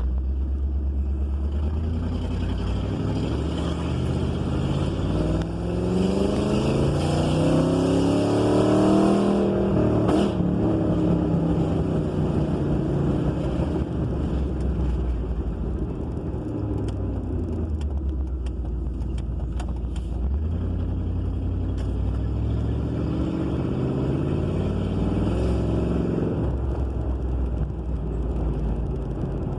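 Ford 302 (5.0 L) V8 engine pulling hard in first gear, its pitch climbing for about six seconds and then falling away as the throttle closes. It then runs low and steady, with a second, shorter climb and drop near the end.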